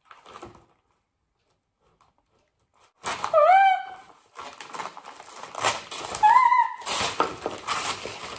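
Wrapping paper crackling and tearing as a present is unwrapped by hand, beginning about three seconds in after a short quiet gap. Two short high-pitched squeals break in, one as the rustling starts and one about three seconds later.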